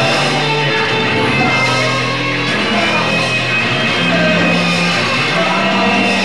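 Live punk rock band playing loud, with electric guitar over a bass line of held notes that shift every half second or so.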